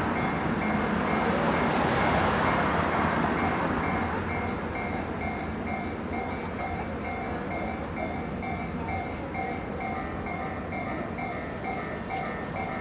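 Japanese level-crossing warning bell ringing in steady, rapid repeated dings. Under it a passing train's rumble fades away over the first few seconds.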